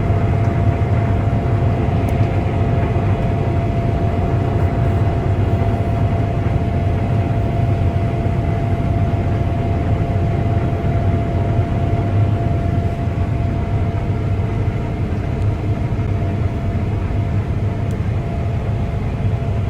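Combine harvester running steadily at work in a wheat field: a continuous deep engine rumble with a steady whine above it.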